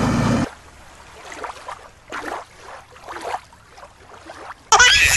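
Water splashing and rushing in a shallow rocky creek for the first half-second, then quieter, soft irregular whooshes, with a loud pitched, voice-like cry cutting in near the end.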